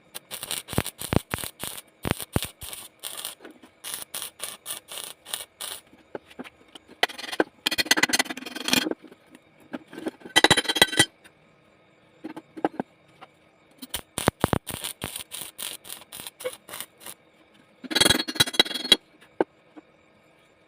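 Electric arc welding on a round pipe joint: the arc crackles in quick runs of short spurts, broken by three longer bursts of about a second or two each, with brief pauses between.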